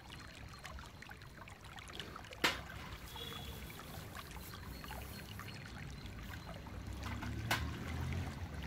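Water sloshing and trickling as stainless steel utensils are washed by hand in a large steel basin, with a sharp clink of steel on steel about two and a half seconds in and another near the end.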